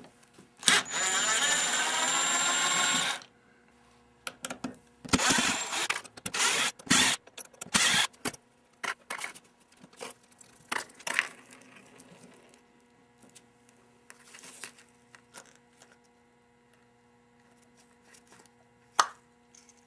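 DeWalt cordless power screwdriver backing screws out of a plastic irrigation valve's bonnet: one steady run of about two and a half seconds near the start, then several shorter bursts. After that come scattered clicks and knocks, with one sharp click near the end.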